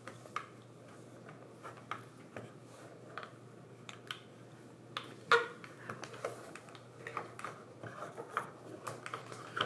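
Plastic Play-Doh toy tools and dough being handled: scattered light clicks, taps and rubbing, with one louder knock about five seconds in.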